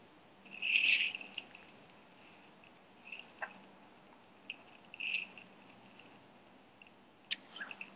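Short rustling, crinkling handling sounds at close range: a longer one about half a second in, shorter ones around three and five seconds, and a sharp click near the end.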